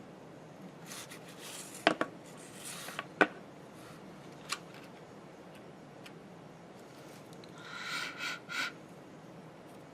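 Hand-handling of a plastic sheet and hot glue gun: rubbing and scraping, three sharp clicks spread over the first half, and a short squeaky rub near the end.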